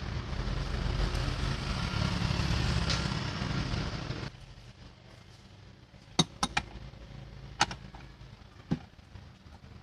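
Diesel car engine running steadily, then stopping abruptly about four seconds in, followed by a few light clicks.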